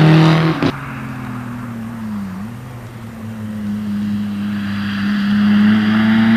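Rally car engine held at steady revs as the car approaches, with a brief dip in pitch about two seconds in, then growing louder as it nears, with tyre hiss through standing water near the end. It opens with another car's engine note that cuts off abruptly less than a second in.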